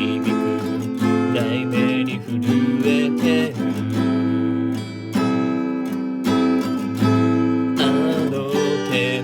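Acoustic guitar strumming chords in a steady rhythm, the instrumental intro of a ballad before the singing begins.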